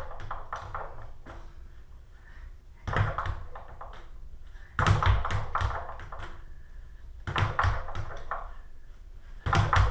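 Leather speed bag punched in short flurries, rattling rapidly against the rebound board above it; four bursts of quick strikes with pauses between.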